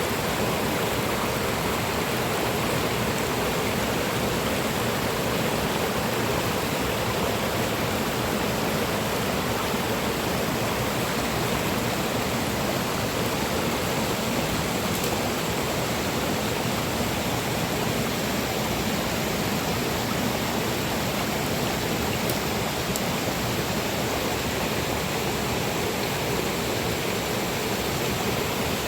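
Mountain river rushing, a steady, unbroken noise of running water.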